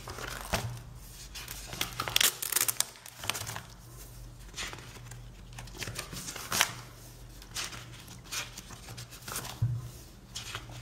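Pages of a spiral-bound notebook, covered in strips of washi and deco tape, being turned and handled: irregular papery rustles and flaps, a few a second, loudest about two seconds in and again past the middle.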